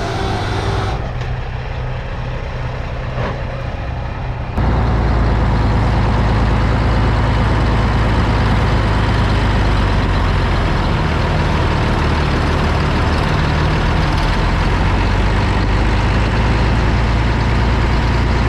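Heavy farm machinery's diesel engine running steadily under load; about four and a half seconds in the sound suddenly gets louder and then holds steady.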